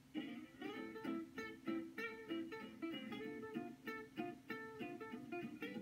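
Background music: an acoustic guitar picking a quick run of plucked notes.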